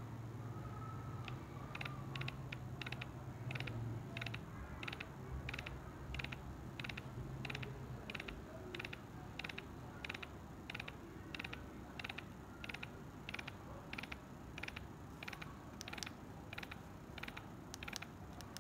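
Small mechanism clicking in an even rhythm, about two sharp clicks a second, over a low steady hum that fades out partway through.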